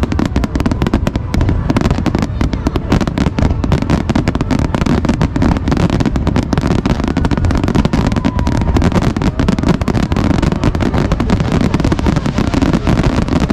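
Fireworks finale barrage: many aerial shells bursting in rapid succession, with the booms and crackling overlapping without a break.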